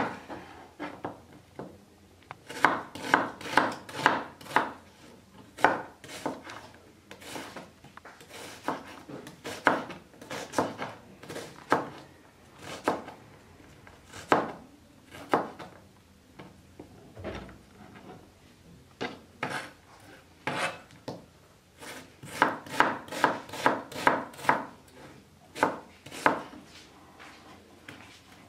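Kitchen knife chopping an onion on a plastic cutting board: runs of quick strokes, about three a second, broken by pauses and a few single cuts.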